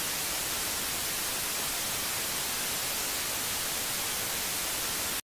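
Steady hiss of TV-style static, a white-noise sound effect, which cuts off suddenly at the end.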